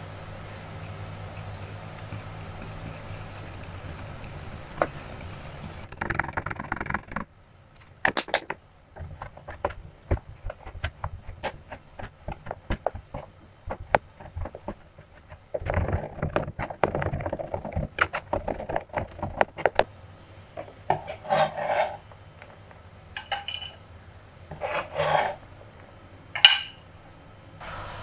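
Knife chopping a bar of white chocolate on a cutting board: runs of quick, sharp cuts, then bursts of scraping near the end.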